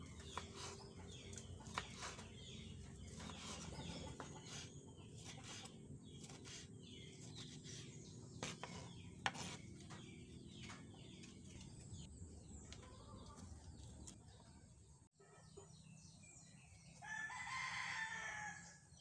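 A rooster crows once near the end, about one and a half seconds long, the loudest sound here. Before it, scattered light clicks and knocks over faint background.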